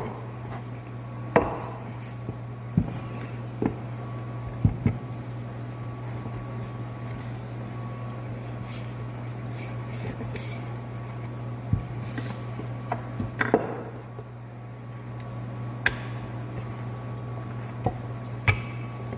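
A rolling pin rolling out thin dough on a floured worktop: rubbing strokes with about ten irregular sharp knocks as the pin and dough are set down on the counter. A steady low hum runs underneath.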